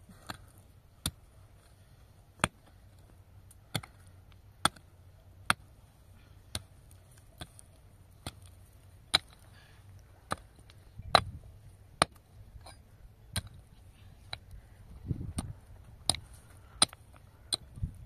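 A run of sharp single strikes, like chopping blows, roughly one a second but unevenly spaced and of varying loudness. A few dull low thumps come in the second half.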